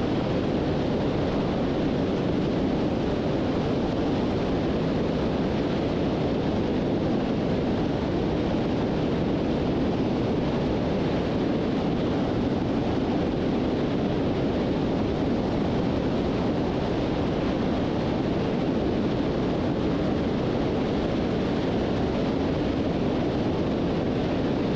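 Beech 18's twin radial engines and airflow in flight, a steady drone.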